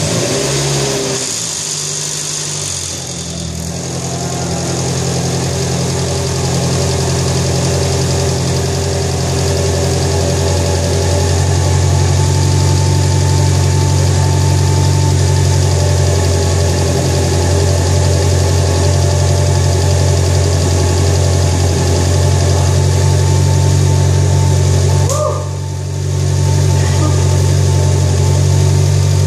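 Mitsubishi Lancer Evolution IX MR's turbocharged 4G63 four-cylinder, fitted with Kelford 272 camshafts, idling just after its first start on the new cams. The idle shifts in the first few seconds and then settles to a steady run, with a brief dip in level about 25 seconds in.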